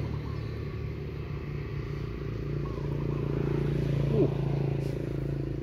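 A small engine drones steadily and evenly, its pitch shifting slightly about halfway through. Just after four seconds a brief rising squeak sounds over it.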